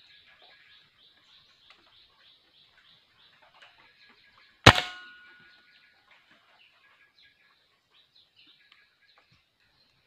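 A single sharp rifle shot about halfway through, with a short ringing tail. Faint small-bird chirps and a steady high buzz run behind it.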